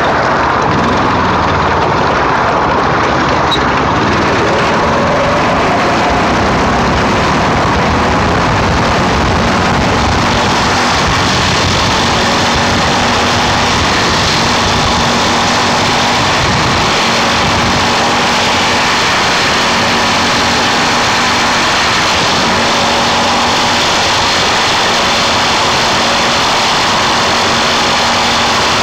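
Speeco 212cc single-cylinder Honda-clone engine running at a steady speed under way, loud and even throughout, over a broad rushing noise.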